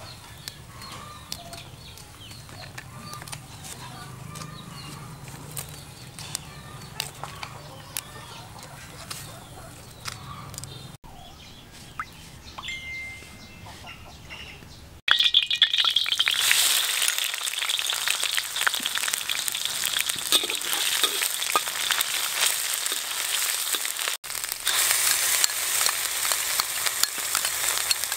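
Quiet yard background with scattered light clicks, then about halfway through a sudden loud sizzling as paste is fried in hot oil in a steel wok, crackling on steadily as it is stirred.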